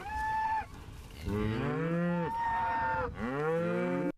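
Cattle mooing: three calls. A short one ends about half a second in, a long one in the middle rises, holds and falls away, and a third rises near the end.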